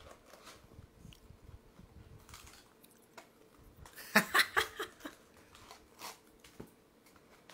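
Cardboard booster display box and its foil booster packs being handled and opened: faint rustling, with a quick run of crisp crackles about four seconds in.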